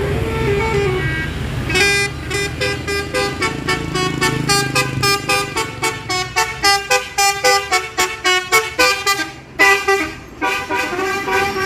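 Bus 'telolet' multi-tone horn playing a melody: a few held notes at first, then from about two seconds in a quick run of short notes that change pitch, over the low rumble of the bus engine running.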